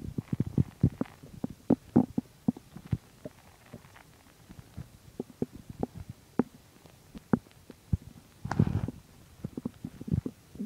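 Human stomach gurgling while digesting a meal of chicken and milk: a quick, irregular series of short pops and squelches, with a longer rumble about eight seconds in.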